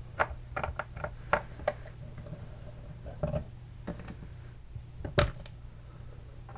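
Small parts of an opened airsoft version 2 gearbox clicking and knocking as they are handled, with the MOSFET and electronic trigger unit being lifted out; a scatter of sharp, separate clicks, the loudest about five seconds in, over a steady low hum.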